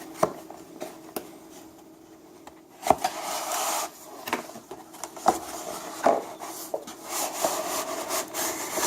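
Cardboard tablet box being handled and opened: scraping and sliding of cardboard against cardboard, broken by several sharp knocks and taps, the loudest about three seconds in.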